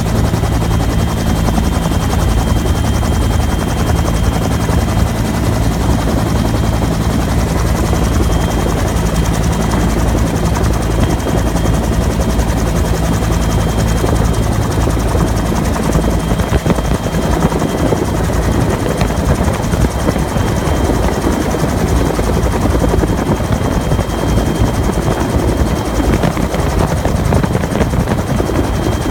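Bell UH-1 Huey helicopter heard from aboard: a steady low rotor drone under a thin, high turbine whine. The low drone grows rougher about halfway through.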